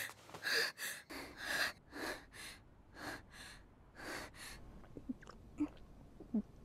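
An anime girl's voice panting, about eight short breathy huffs in the first four and a half seconds. Then a few soft gulps as she drinks from a cup.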